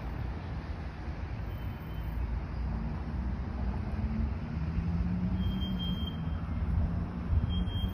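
Low rumble of nearby road traffic, with a vehicle's engine hum growing louder through the middle. A short, thin, high squeal sounds a couple of times in the second half.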